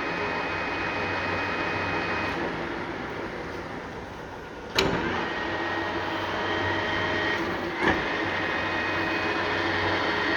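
A large Lansing 20" x 160" engine lathe running steadily with a whine from its gearing. There are two sharp clunks, about five and eight seconds in, and the pitch of the whine changes after the first one.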